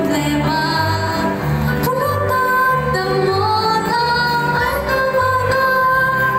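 Music: a singer holding long notes over a regular bass line.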